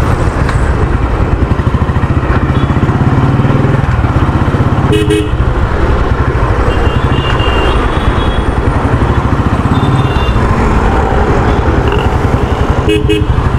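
Royal Enfield Thunderbird 350's single-cylinder engine running at low road speed with an even pulsing beat, heard from the rider's seat. Short vehicle horn toots cut in about five seconds in and again near the end.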